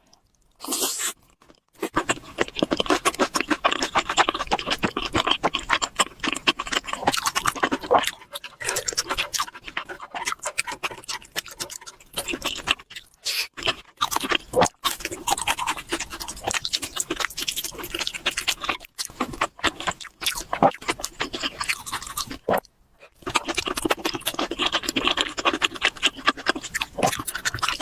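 Close-miked chewing and crunching while eating chicken: a dense run of crackly, clicky bites with two short pauses.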